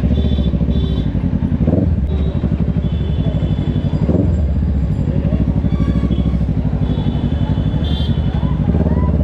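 Kawasaki Ninja 650's parallel-twin engine running at low speed, a steady low pulsing exhaust note, with short high-pitched tones from the surrounding street traffic now and then.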